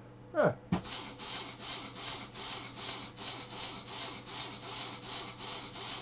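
Homemade rotary-switch coil driver running: its brass brushes make and break a 12-volt battery circuit through two microwave oven transformers, giving a rhythmic rasping crackle about three times a second. The pulsing comes from the brushes only barely touching the toothed wheel, so the circuit breaks each time a tooth passes.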